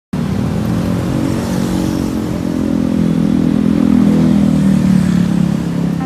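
Street traffic dominated by a motorcycle engine running close by, its pitch rising slightly toward the middle and easing off near the end.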